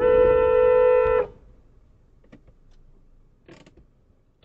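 Car horn held in one steady tone, cutting off abruptly about a second in, followed by quiet with a few faint clicks.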